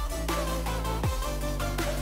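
Background music: an electronic beat without vocals, with a steady deep bass, a short repeating melody and deep kick drums with a dropping pitch about once a second.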